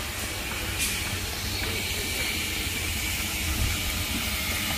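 Steady outdoor background hiss with a fluttering low rumble underneath; no single clear source stands out.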